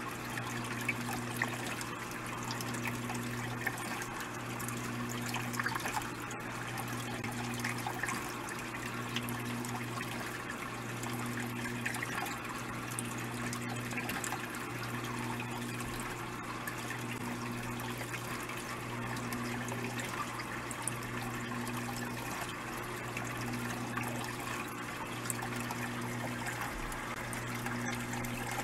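Aquarium equipment running: steady trickling, bubbling water over a constant low hum, with a second hum that cuts in and out about every second and a half.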